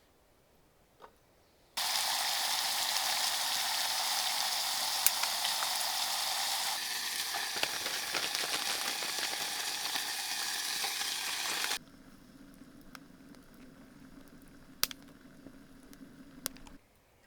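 Food frying in a pan, a loud steady sizzle that starts suddenly about two seconds in and cuts off near twelve seconds. It is followed by a much quieter stretch with a low hum and a few sharp clicks.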